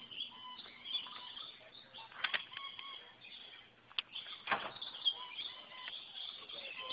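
Aviary birds chirping in many short, high calls, with a few brief rustling bursts of wings flapping close by.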